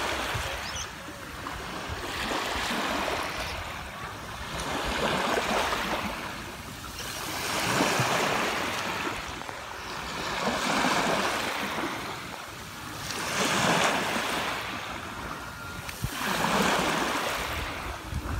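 Small waves washing up over wet sand, a hiss of surf that swells and fades every few seconds.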